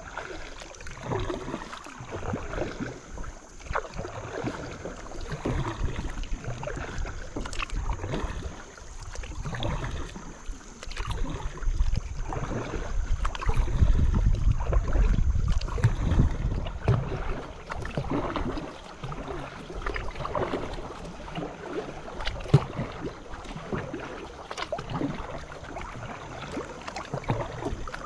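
Paddling a small boat on a creek: irregular paddle strokes and water splashing. A low rumble of wind on the microphone comes up for a few seconds in the middle.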